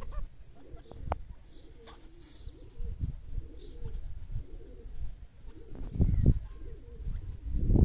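Soft low cooing-like bird calls with a few faint high chirps, broken by several low thumps, the strongest near the end.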